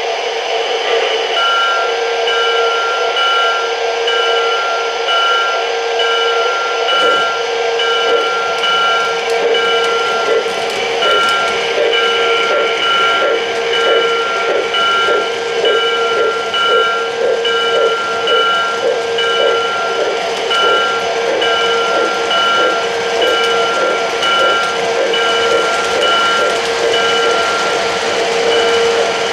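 O-gauge model freight train rolling past on three-rail track. Steady ringing tones run under the rolling noise and break off briefly about once a second.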